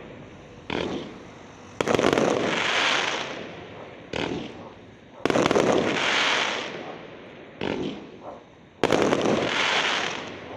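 Aerial firework shells bursting: three loud bangs about three and a half seconds apart, each trailing off in a long fading crackle, with a smaller, sharper bang about a second before each one.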